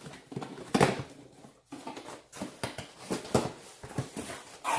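A cardboard shipping box being opened by hand: a run of short, irregular rustling and scraping noises from the flaps and packing material.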